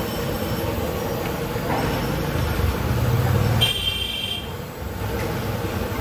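Potato chops deep-frying in a large karahi of hot oil: a steady sizzle over a low rumble. A brief high-pitched tone sounds about three and a half seconds in.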